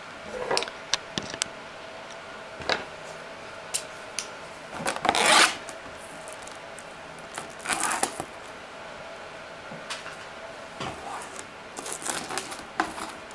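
Plastic shrink-wrap seal being cut and pulled off a cardboard box: scattered scratches, clicks and short rasping rips, the longest about five seconds in. A faint steady hum runs underneath.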